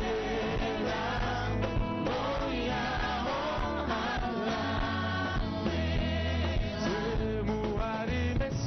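Gospel music: singers over a full band with a strong bass line.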